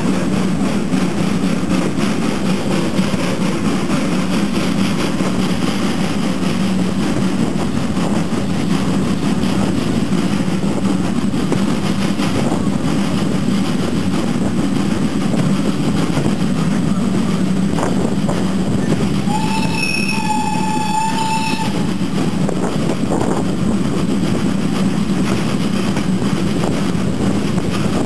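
Steam-hauled train pulling away and running on, a steady rumble of wheels and rushing air heard through an open carriage window. About two-thirds of the way through, the Ty2 steam locomotive's whistle sounds once for about two seconds, rising slightly in pitch as it starts.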